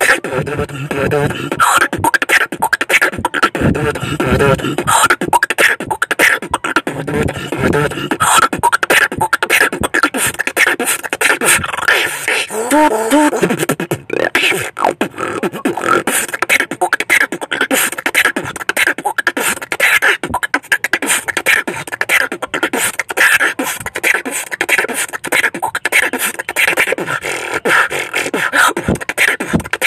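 Human beatboxing: a dense, fast run of mouth-made drum sounds (kicks, snares, clicks and hisses), with heavy bass sounds around three to five seconds in and a short wavering pitched vocal line about thirteen seconds in.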